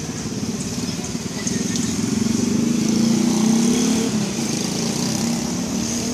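A motor vehicle's engine running close by, with a fast steady pulse, growing louder about two seconds in and easing off again after about four seconds.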